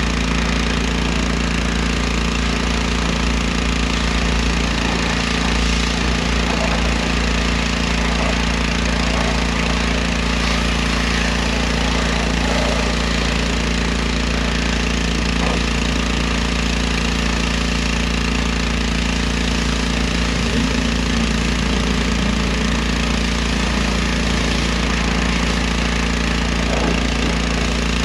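Pressure washer running steadily, its motor droning under the hiss of the high-pressure jet spraying a car's wheel and tyre.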